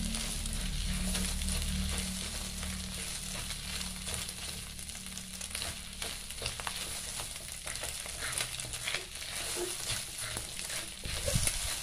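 Scrambled egg, onion and chilli sizzling in hot oil in a wok, stirred continuously with a spatula that scrapes and taps against the pan.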